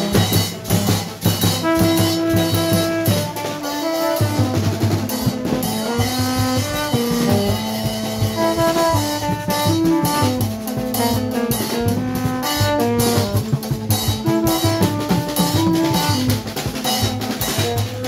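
Haitian rara street band: long PVC-tube vaksen horns sound a repeating line of short held notes over steady hand drumming.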